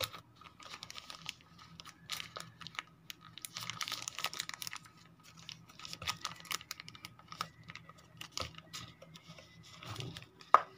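Thin plastic bag crinkling and rustling in the hands as it is opened around a pair of earphones, with many small irregular crackles and clicks and one sharper click near the end.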